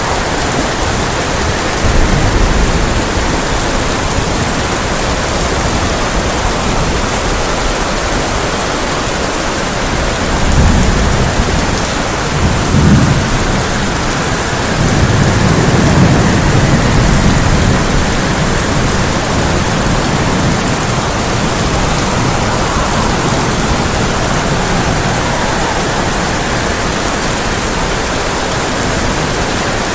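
Heavy rain drumming steadily on a tin roof, with thunder rumbling low three times in the middle, the last rumble the longest.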